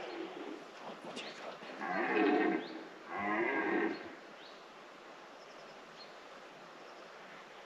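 Red deer stag roaring in the autumn rut: two deep roars in quick succession, about two and three seconds in, each lasting under a second.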